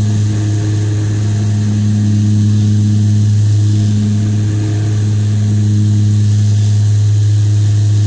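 Cabin sound of a Dornier 228's twin Garrett TPE331 turboprops at takeoff power during lift-off and the first seconds of climb: a loud, steady, low propeller drone with a slow wavering in its tone.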